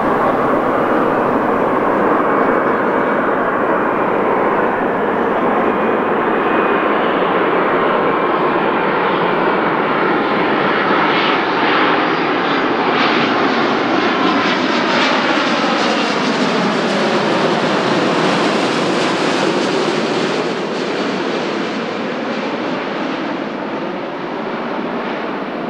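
Korean Air Boeing 787-9 Dreamliner on final approach with gear down, its two GEnx turbofan engines running at approach power as it passes low overhead. The jet noise brightens as the airliner comes over, its engine tones fall in pitch as it passes, and it eases off slightly as it flies away near the end.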